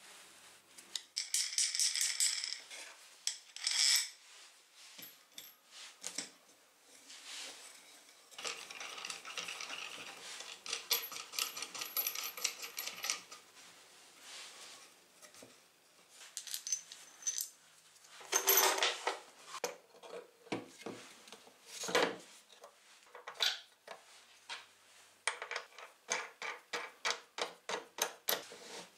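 Small metal hardware (nuts, washers and a threaded rod) clinking and clicking against each other and on wood as it is handled and fitted, with several quick runs of rapid clicks.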